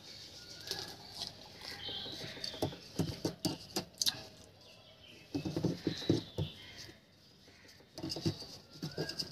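Potting mix pattering into a coir-lined wire frame and being poked down with a metal rod: soft rustling and crackling with sharp clicks of metal against the wire. Birds chirp in the background.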